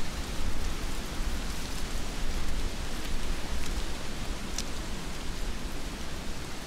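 Heavy rain falling steadily, with a deep low rumble underneath and one sharper drop hit about four and a half seconds in.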